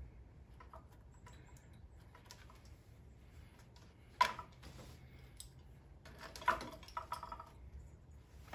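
Hand-stitching a welt to a shoe: thread being drawn through the leather and pulled tight, with faint rasps and squeaks. The two loudest pulls come about four seconds and six and a half seconds in.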